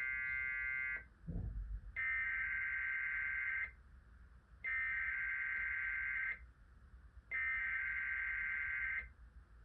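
Emergency Alert System SAME header being transmitted: high-pitched bursts of digital data tone, the sign that an EAS alert is being activated. A short burst at the start is followed by three longer bursts of about two seconds each, a second apart, with a brief low thump between the first two.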